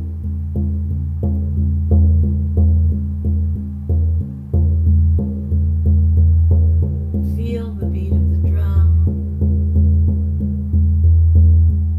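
Large hide frame drum (shamanic medicine drum) beaten in a steady, even rhythm of about three deep, ringing strikes a second.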